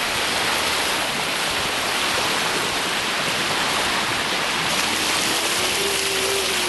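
Steady rush of water along a sailboat's hull and bow wave, a loud even hiss of moving water and spray. A faint steady hum joins in about two-thirds of the way through.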